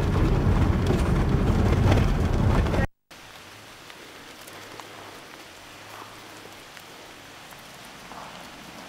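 Car driving on a gravel road, heard from inside the cabin: a loud, steady rumble of engine and tyres on loose stones. It cuts off suddenly about three seconds in, giving way to a quiet, steady outdoor hiss with a faint low hum.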